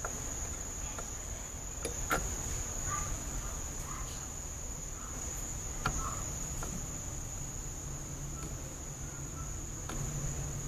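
A steady, high-pitched whine with a low hum beneath, and a few faint clicks as a 6X4 vacuum tube's pins are worked into their socket in a Hammond B3 organ chassis: a couple about two seconds in and one near six seconds.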